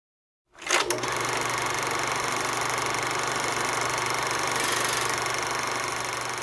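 Film projector starting up: a couple of clicks about half a second in, then a steady, rapid mechanical clatter over a low hum.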